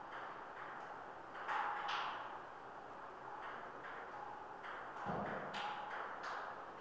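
Table tennis rally: a ping-pong ball clicking off paddles and the table in an irregular back-and-forth rhythm, with a dull thump about five seconds in.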